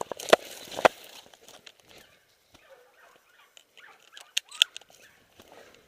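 Handling noise and scrub brushing against the camera as its wearer moves through the brush: light rustling with a few sharp clicks and knocks, two strong ones in the first second and another pair about four and a half seconds in.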